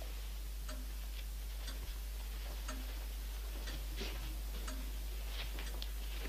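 Pendulum clock ticking evenly, about once a second, over a steady low hum, with a few extra light clicks around four to five seconds in.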